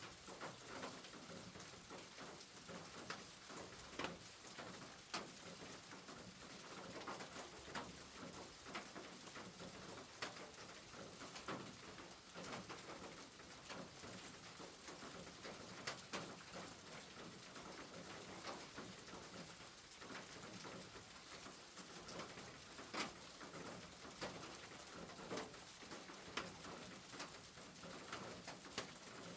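Rain falling steadily: a constant soft hiss with individual drops ticking irregularly over it.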